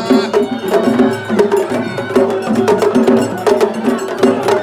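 Japanese festival float music (matsuri-bayashi): drums and rapid, sharp clacking percussion playing a steady rhythm.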